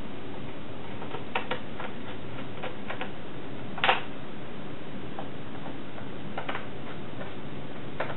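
Small screwdriver clicking against screws as it drives them into a laptop's bottom cover panel, with hands handling the case: scattered light ticks and one louder click about four seconds in, over a steady background hiss.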